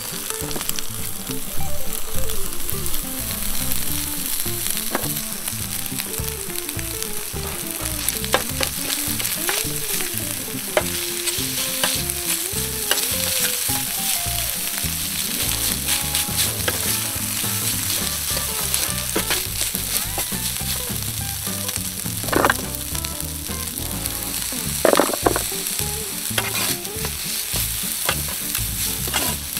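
Garlic rice and steak sizzling on a hot square iron griddle plate, with a metal turner and meat fork scraping and clicking against the plate as the rice is stirred and chopped. Two louder scrapes come about three quarters of the way through.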